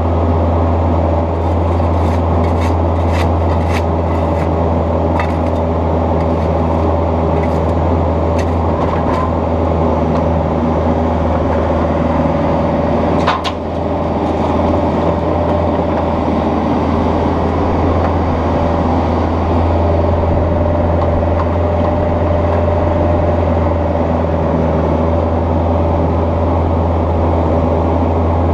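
Bobcat 430ZHS mini excavator's diesel engine running steadily while it works, a deep drone with a steady higher tone riding over it. A few light clicks and scrapes come in the first few seconds, and a single sharp knock about halfway through.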